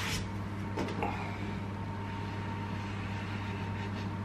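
Steady low appliance hum with a faint thin whine above it, and a soft knock about a second in as a glass beer mug is lifted.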